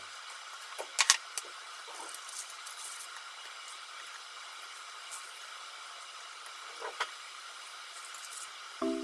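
Wooden chopsticks clicking against a metal bento box and a glass bowl as food is handled: a few sharp clicks, the loudest about a second in and another near seven seconds, over a steady hiss. Music starts just before the end.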